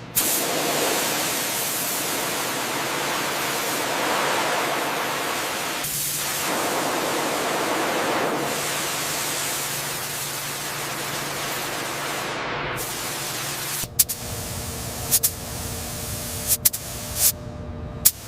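Loud, steady hiss lasting about thirteen seconds, then cutting off. A low hum follows, with half a dozen sharp clicks.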